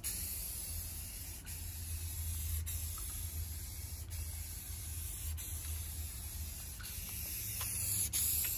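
Rust-Oleum aerosol spray paint can hissing steadily as purple paint is sprayed onto a car door panel.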